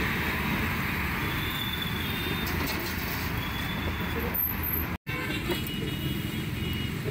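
Steady road traffic noise from passing vehicles, with a momentary dropout about five seconds in.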